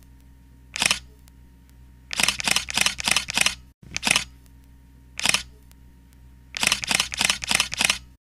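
Film camera clicking: single shutter clicks alternate with quick runs of five or six ratcheting clicks, like a film-advance wheel being wound, over a faint low hum.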